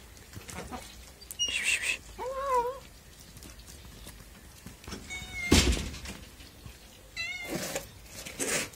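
A domestic cat meows once, briefly, about two seconds in, among a few short high squeaks. A single loud thump comes about five and a half seconds in.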